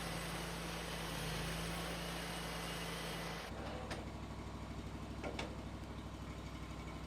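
An engine running steadily at idle. About halfway through the sound changes abruptly to a lower, evenly throbbing engine note, with a couple of short clicks.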